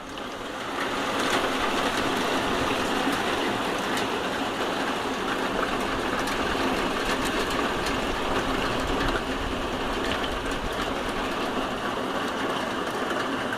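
Rain falling on a tin roof: a dense, steady hiss with scattered faint ticks of single drops, building up over the first second or so and then holding.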